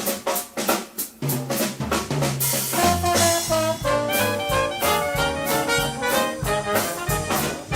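Upbeat brass music: trumpets and trombones playing a tune over a steady drum-kit beat.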